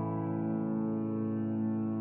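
Calm background music holding one sustained chord.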